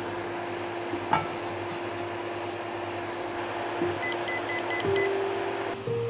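Soft background music of sustained notes, with one light clink about a second in and a quick run of about six short high beeps around four seconds in.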